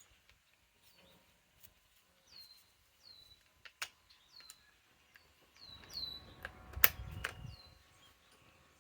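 A small bird repeating short, high chirps that slide downward, about one every half second, with a few sharp clicks and a soft rumble, the loudest click about seven seconds in.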